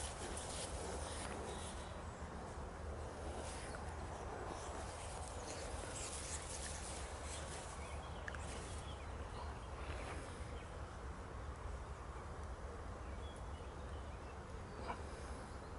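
Two European hedgehogs scuffling in the grass as they fight: rustling and short scraping sounds, busiest in the first ten seconds and sparser after, over a steady low hum.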